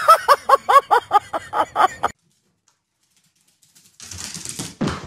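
Small dog yelping in a rapid series of about ten high yelps, each rising and falling in pitch, which stop abruptly. Near the end comes a short noisy scuffle.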